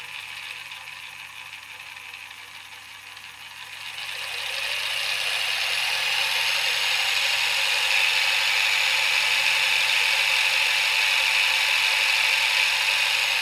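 Optimum BF20 Vario milling machine's spindle motor and head whirring as the speed is turned up, growing louder about four to six seconds in and then holding steady, starting to slow right at the end. The mill is running as it should after its faulty transformer was replaced.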